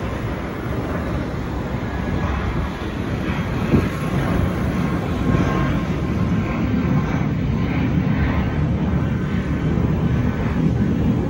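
Jet noise from an Airbus A319-132 airliner's IAE V2500 turbofan engines passing overhead: a steady rumble that grows slightly louder, with a brief bump about four seconds in.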